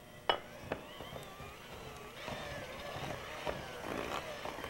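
Electric hand mixer running, its beaters churning through thick cookie dough in a mixing bowl, with a few clicks near the start.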